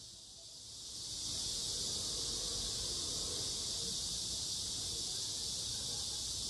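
Chorus of cicadas, a steady high-pitched buzzing that fades in over about the first second.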